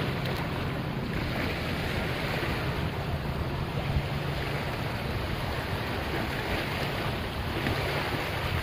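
Small sea waves washing in over rocks and sand at the water's edge in a steady wash, with wind on the microphone and a steady low hum underneath.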